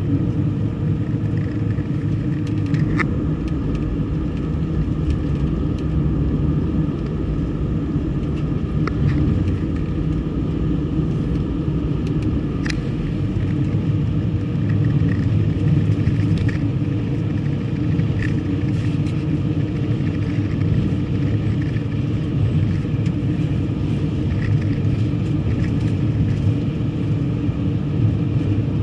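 A car driving, with steady road and engine rumble and a few faint clicks scattered through it.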